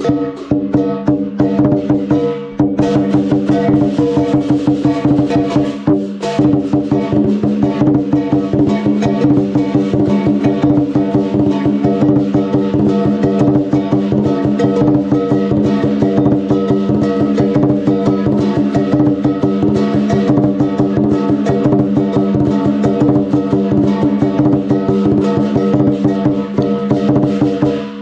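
Lion dance percussion: a large drum beaten in fast, dense strokes, with gong and cymbals ringing over it. The playing dips briefly about two and a half and six seconds in.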